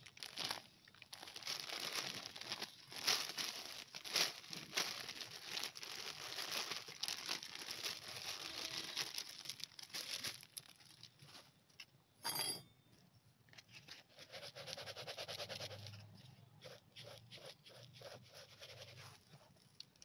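Plastic bag crinkling and rustling as ground peanut is shaken out of it into a plastic jug, busiest in the first half, with one brief sharp sound near the middle and quieter rustling after.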